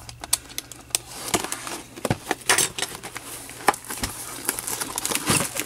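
Plastic shrink-wrap on a cardboard box being slit with a box cutter and handled: irregular small crackles, clicks and taps.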